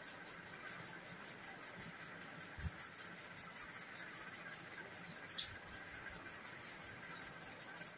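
Faint sounds of two people eating rice with their hands from steel plates, over a low steady background hiss, with a soft knock about two and a half seconds in and a short click a little after five seconds.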